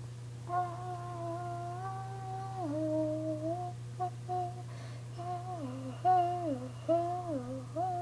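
A young person humming a short wordless tune: one long held note that steps down, then a string of shorter notes that each slide downward in pitch.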